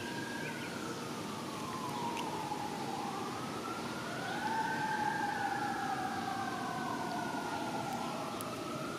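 Emergency-vehicle siren wailing: two overlapping tones, each rising and falling slowly in pitch over a few seconds.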